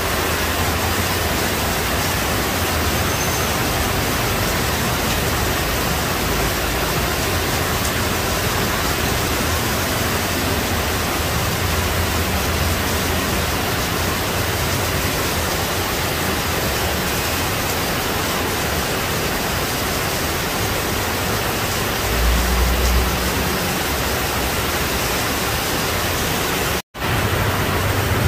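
Heavy rain pouring down on a street, a dense steady hiss, with a low rumble of passing traffic underneath that swells briefly near the end. The sound drops out for an instant shortly before the end.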